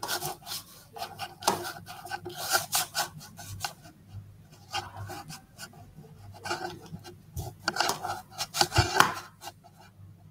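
Irregular rubbing and scraping noises close to the microphone, in uneven clusters of short scrapes and knocks, busiest near the start and again about eight to nine seconds in.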